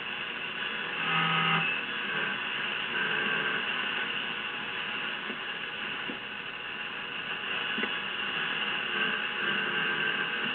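Zenith Y600 Trans-Oceanic tube radio tuned to its 16-metre shortwave band, playing steady static hiss with a brief faint tone about a second in. The band is mostly empty and not picking much up.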